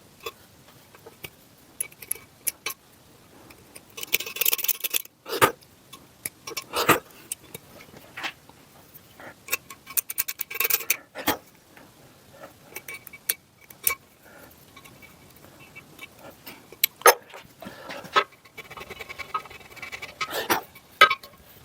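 Small hand tools and metal parts handled on a workbench: irregular clicks and taps, with a brief scraping hiss about four seconds in and a busier run of scraping and tapping near the end.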